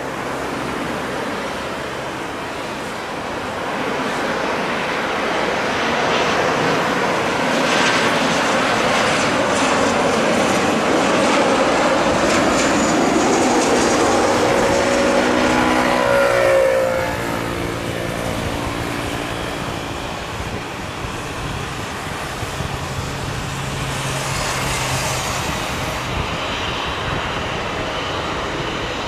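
Boeing 737-800's CFM56 turbofan engines on landing, growing louder as the airliner passes low over the runway. The engine whine falls in pitch as it goes by, then settles to a lower, steadier rumble as it rolls out on the wet runway.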